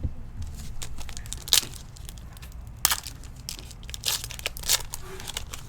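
Foil wrapper of a sports card pack being torn open and crinkled, in a few sharp crackling rips.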